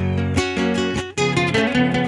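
Two acoustic guitars strumming and plucking the instrumental interlude between verses of a Panamanian décima in the torrente style, with a brief break just after a second in.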